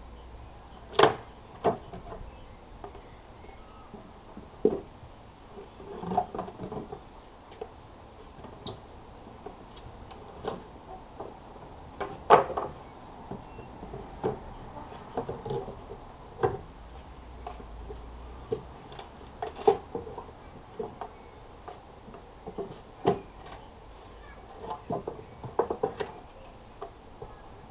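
Wooden pallet deck boards being pried off the stringers with a long steel pallet dismantling bar: irregular sharp knocks and cracks of wood and nails giving way, a second or a few seconds apart, some coming in quick clusters.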